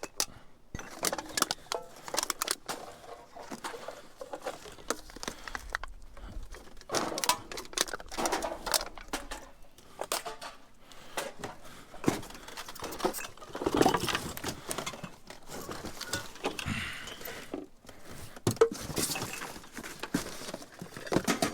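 Hands rummaging through scrap in a dumpster: a continuous run of irregular clinks and clatters as metal pieces and aluminium cans are shifted and sorted.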